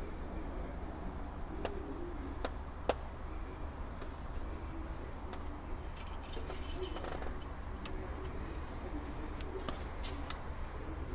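Nissan X-Trail T30's 2.2-litre diesel engine idling steadily, with a scatter of sharp metallic clicks as the oil dipstick is pulled and wiped.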